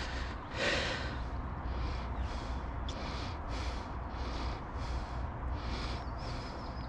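Water sloshing in short, soft swishes, about two a second, with a louder splash about half a second in, as a large pike is held in the water and worked back and forth to revive it before release. A steady low rumble lies underneath.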